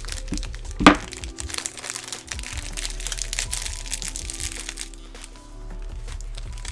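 Background music over the crinkling of a clear plastic parts bag and small clicks of parts and tools being handled on a workbench, with one loud sharp knock about a second in.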